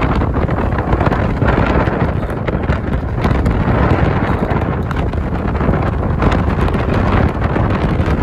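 Wind buffeting the microphone aboard a sailing catamaran under way: a loud, steady rushing noise with a heavy low rumble.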